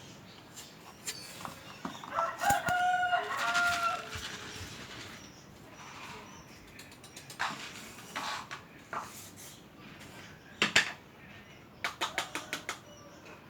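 A rooster crowing once, a broken call of about two seconds, followed by scattered sharp clicks and rattles, with a quick run of clicks near the end.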